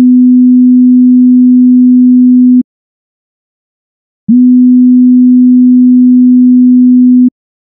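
A pure sine-wave test tone at about 250 Hz, held steady and played twice for about three seconds each time: a frequency-recognition listening question. The first play is already sounding and stops about two and a half seconds in. The second starts about four seconds in and stops shortly before the end.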